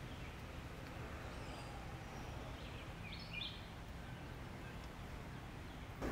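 Steady outdoor background noise with a brief bird chirp about halfway through.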